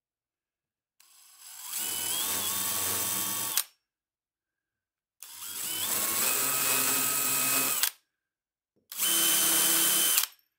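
Cordless drill boring into the plywood end of a wooden handle in three runs, each a couple of seconds long, the motor's whine stepping up in pitch as it spins up and then holding steady.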